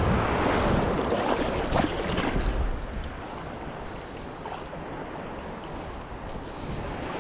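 Wind noise on the microphone over sea surf, louder for the first three seconds with a few brief knocks, then a steadier, quieter hiss.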